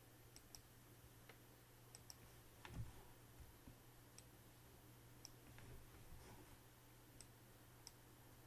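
Faint, scattered computer mouse clicks, a dozen or so at irregular intervals, over a low steady hum, with one soft thump about three seconds in.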